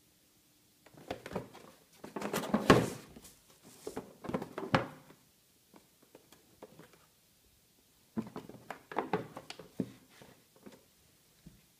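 Cardboard toy box handled and turned over in the hands: scraping, tapping and light knocks, in two spells with a quieter gap between.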